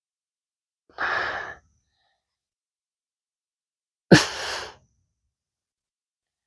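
Two short breath noises from a person's voice: a sigh-like exhale about a second in, then a sharper burst of breath with a sudden start about four seconds in.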